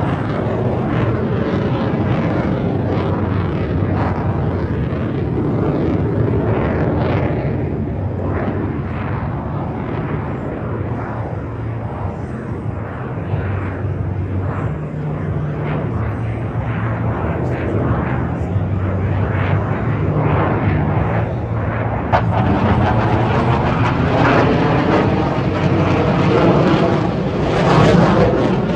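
Fighter jet engine noise as the jet flies a display overhead. The sound grows louder and brighter about three quarters of the way through and is loudest near the end.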